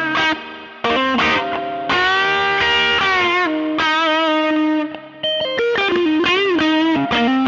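Overdriven electric guitar: a Fender '52 Telecaster through a Tube Screamer overdrive pedal into a 1966 Fender Vibrolux Reverb tube amp, playing a lead phrase of single notes and chords. Several notes are bent up and back with vibrato.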